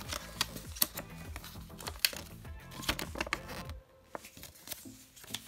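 A folded paper user manual being opened and unfolded by hand: paper crinkling and rustling with light clicks. Background music plays under it and stops about four seconds in.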